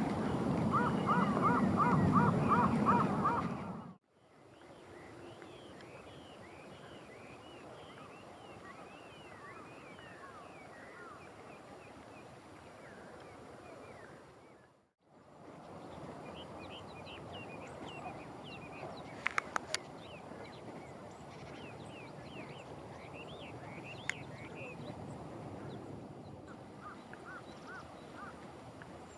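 Waterfowl giving loud honking calls in quick succession. After a couple of abrupt cuts, many small birds give short, thin, high chirping calls, with a few sharp clicks partway through.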